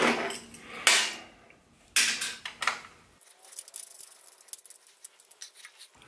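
Small metal parts being handled by hand: bolts and a wheel speed sensor bracket clicking against a motorcycle fork leg. Two sharper clatters about one and two seconds in, then only faint light ticks.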